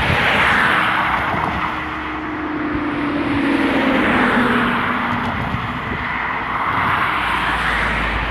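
Road traffic: cars driving on the road by the crossing, a rushing tyre-and-engine noise that swells and fades, with a faint low hum that sinks slightly in pitch over a few seconds.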